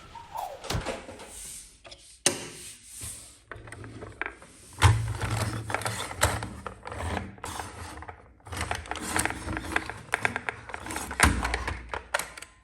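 Small plastic toy cars being handled, giving irregular clicking and rattling with a few louder knocks and a low rumble through the second half.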